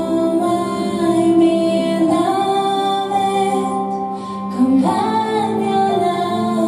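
Music with a woman singing long held notes. The pitch moves to a new note about every two seconds, with a short upward slide about five seconds in.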